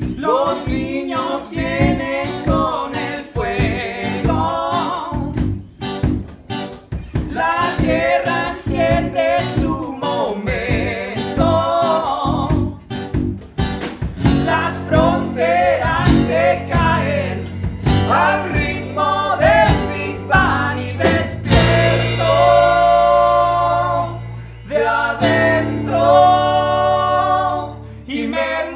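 Folk-rock band playing live: singing with backing vocals over acoustic guitar and tiple, drums and bass guitar. About three-quarters of the way through the band comes in fuller, with long held bass notes under the voices.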